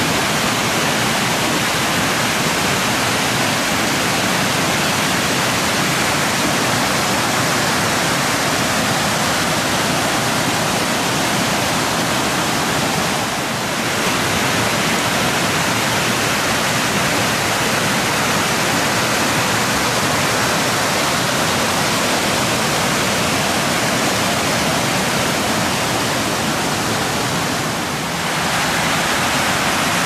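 Waterfall running full in the rainy season, pouring over rock into a plunge pool: a steady, loud rush of water. It dips briefly about halfway through and again near the end.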